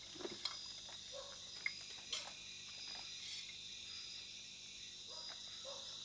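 Steady high-pitched chorus of night insects, crickets and the like, chirring continuously, with a few faint small knocks.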